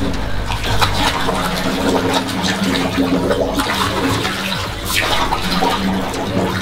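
Water splashing and sloshing in a bathtub as a person thrashes and sinks under the surface, with repeated sharp splashes.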